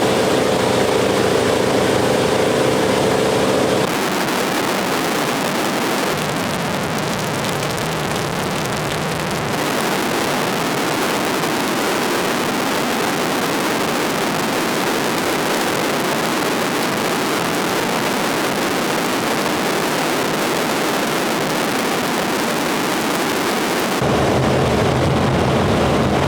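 Antonov An-2's nine-cylinder radial engine droning steadily in cruise, heard inside the cabin. For most of the middle the engine tone gives way to a loud, even rushing noise, and it returns near the end.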